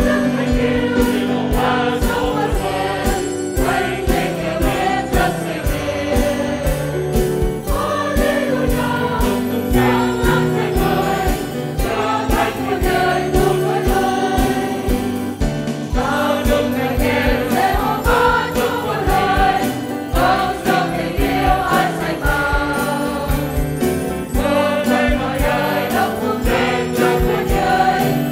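Mixed choir of men and women singing a Vietnamese hymn of praise, with piano and a steady rhythmic accompaniment.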